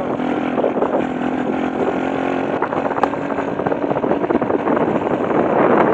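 Road traffic with a truck driving ahead: a steady engine hum gives way about two and a half seconds in to rushing road and engine noise. There is a single sharp click about three seconds in.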